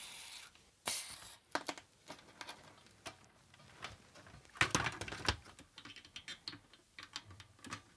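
Aerosol contact cleaner spraying in a short hiss at the start and another brief burst about a second in. Then light clicks and knocks of metal and plastic as the Atari 1050 disk drive mechanism is handled and set into its plastic case, loudest about five seconds in.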